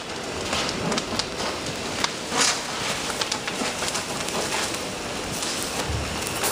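A large apartment-building fire being fought with hoses: a steady rushing hiss with frequent irregular crackles and snaps.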